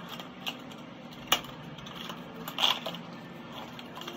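Small clicks and taps of a medication vial and its cardboard box being handled on a countertop: one sharp click about a second in, then a short cluster of taps and rustling a little later.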